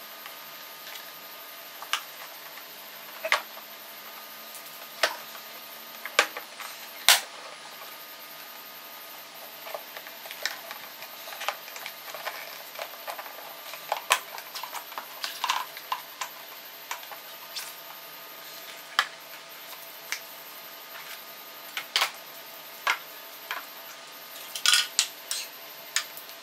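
Sharp plastic clicks and knocks as the car's air-conditioning evaporator housing is unclipped and pried apart by hand and the cooling coil is lifted out. The clicks come one at a time, bunch up through the middle, and come in a quick flurry near the end.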